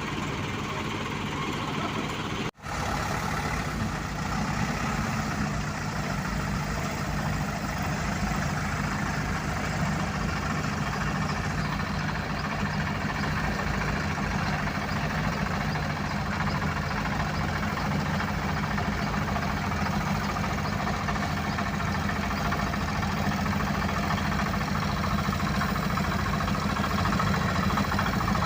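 Diesel engines of road-paving machinery running steadily at a low, even hum. The sound drops out briefly about two and a half seconds in.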